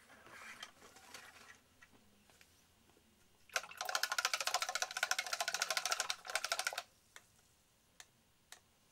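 Faint rustling, then about halfway in a loud, even rattle of many rapid clicks lasting about three seconds, followed by a few single ticks near the end.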